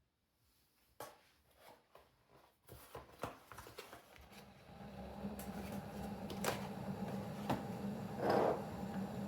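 Quiet kitchen handling: a few light clicks and knocks, then from about three seconds in a steady low hum builds up and holds, with more sharp clicks and a short rushing noise near the end.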